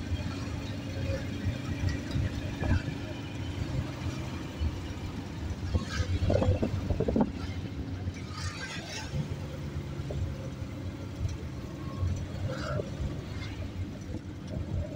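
Car driving along a city road, heard from inside the vehicle: a steady low engine and tyre rumble, with voices briefly louder about six seconds in.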